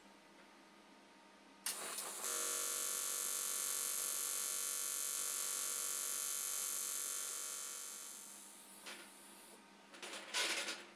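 Welding arc on aluminium: a short crackle as the arc strikes, then a steady buzz for about six seconds that fades away as the weld is finished. A few brief sharp noises near the end.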